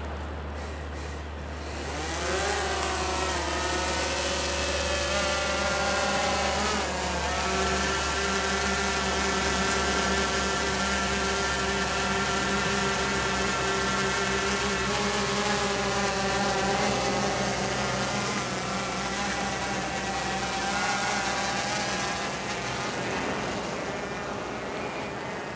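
Quadcopter drone's propellers spinning up about two seconds in as it lifts off from a hand launch, then a steady motor whine that shifts in pitch around seven seconds and fades near the end as the drone flies away carrying a baited fishing line out over the surf.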